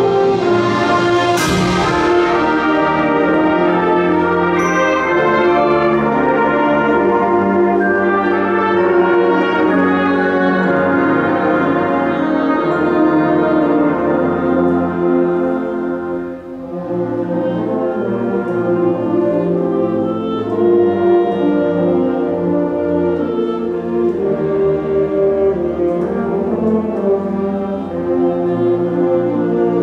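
Symphonic concert band of woodwinds, brass and percussion playing full, sustained chords, with a loud crash that rings on about a second and a half in. The band briefly softens around sixteen seconds in, then swells again.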